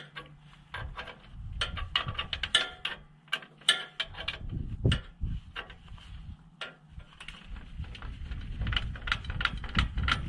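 Scissor-type trailer jack being cranked with a chainsaw wrench: runs of sharp metallic clicks and clinks, several a second, as the tool turns the jack's screw and the jack lowers, with a low rumble at times underneath.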